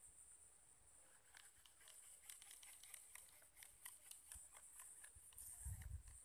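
Near silence: a faint, steady high-pitched insect drone over the marsh, with scattered soft ticks and crackles from about a second in and a brief low rumble near the end.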